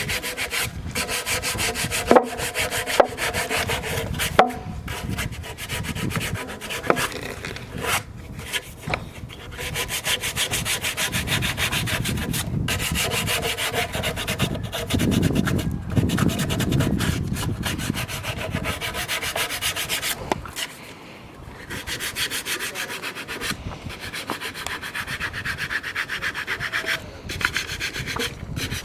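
A tool rubbing and scraping against wood in quick, closely repeated strokes, with a few sharp knocks in the first several seconds and a brief lull about two-thirds of the way through.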